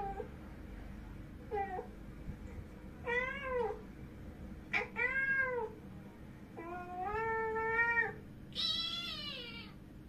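A young tabby cat meowing about six times. The calls rise and fall in pitch, one long call comes after the middle, and the last call is higher.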